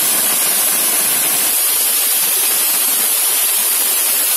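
A waterfall pouring over rocks, heard up close: a loud, steady rush of falling water.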